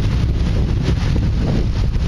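Wind buffeting the microphone in an open-top sports car, over the steady low running of its engine as it rolls slowly in a line of cars.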